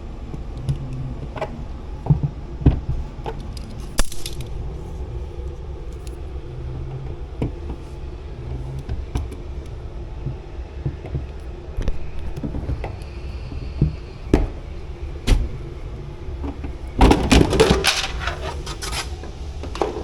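Scattered metallic clinks and knocks of things being handled, with a dense burst of rattling clatter about seventeen seconds in, over a steady low hum.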